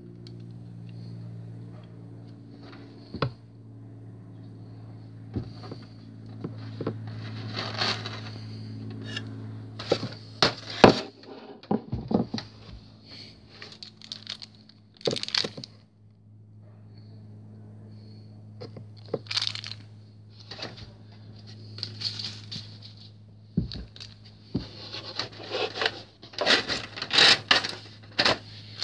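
Handling of a plastic packaging tray and a plastic model airliner: irregular rustling, crinkling, scraping and sharp clicks as the model is worked out of the tray, busiest near the end. A steady low hum runs underneath.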